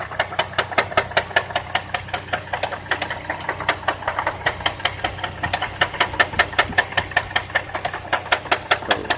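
2002 Chevrolet Trailblazer's 4.2-litre inline-six engine idling with a steady, rapid knock, several strikes a second, from the front of the engine. The owner fears a rod knock; the knock started after an oil change that left little oil showing on the dipstick.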